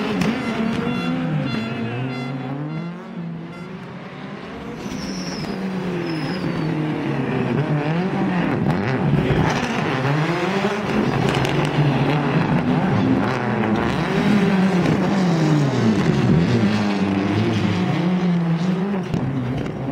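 Rally car engine being driven hard, its pitch repeatedly climbing under acceleration and dropping back at each shift or lift. It grows louder after a quieter patch about three seconds in.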